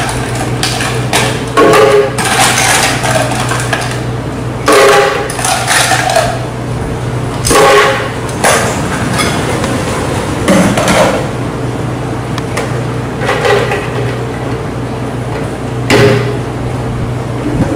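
A spoon scooping from a plastic tub and knocking against the rim of a plastic Vitamix blender jar as ingredients are added: several sharp knocks a few seconds apart, over a steady low hum. Near the end there is another knock as the jar is set onto the blender base.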